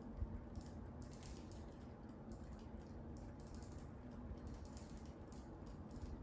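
Faint, irregular clicking and clacking in small bursts, like keys being typed, over a steady low hum; its source is unseen and unidentified.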